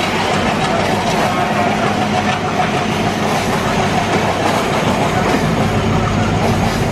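ALCO WDG-3A diesel locomotive's engine running steadily under power, heard from the train it is hauling, together with the running noise of the wheels on the rails.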